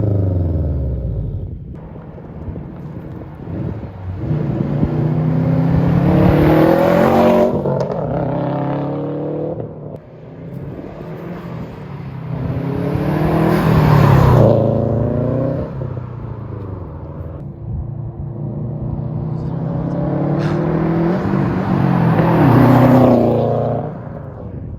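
Subaru WRX STI turbocharged flat-four with an aftermarket exhaust, accelerating hard three times, the engine note climbing in pitch with each pull and then dropping away as it eases off or passes.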